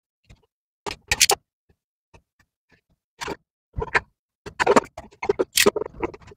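A small sealed cardboard toy box and its plastic being handled and opened: scattered sharp clicks and short crackles, busier in the second half.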